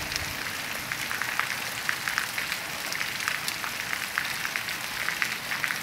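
Steady rain falling, with many short sharp drop ticks over a continuous hiss.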